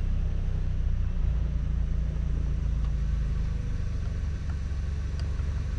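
2023 Toyota Camry's engine running at idle, a steady low rumble that comes on suddenly just after the key is turned. The blower fan stays silent: with the connector reseated it still does not run.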